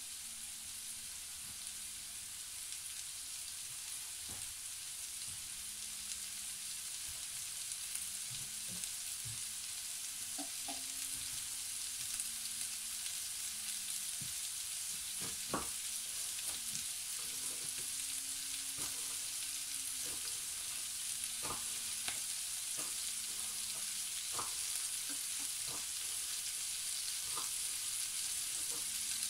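Chopped root vegetables, onions and leeks frying in a large roasting pan: a steady sizzle with scattered small pops, slowly growing louder.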